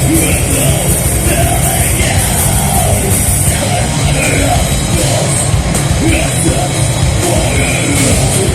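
Heavy rock band playing loudly and steadily, with yelled vocals over the band.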